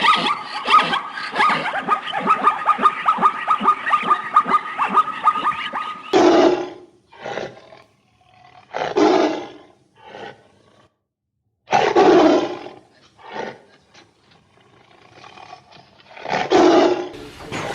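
A rapid run of chattering pulses with a steady high tone, cut off sharply about six seconds in, followed by a large animal roaring in a series of separate, spaced-out calls.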